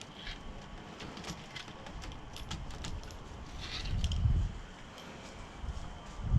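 Light scattered clicks and rattles of a screen rolling tool pressing spline into the aluminium channel of a door screen frame, with a dull low bump about four seconds in.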